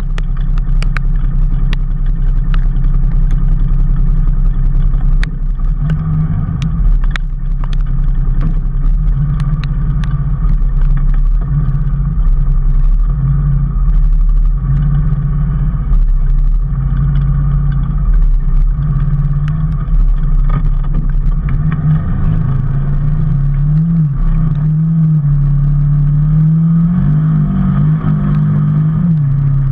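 A vehicle engine running steadily under way, its pitch rising and falling with speed changes in the second half, with scattered sharp ticks in the first ten seconds or so.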